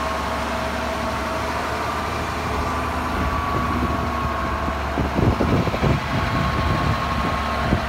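Heavy truck engine idling steadily, with a steady high whine running alongside the low hum.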